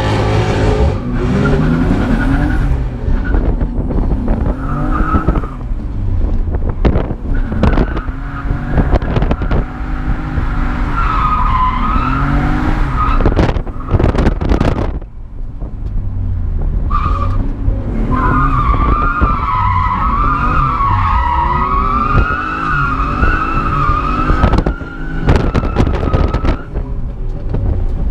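BMW E36 engine heard from inside the cabin, revving up and down over and over while the tyres squeal in wavering screeches as the car slides through corners. The longest squeal runs through most of the second half, with a shorter one before it, and there are scattered knocks from the car.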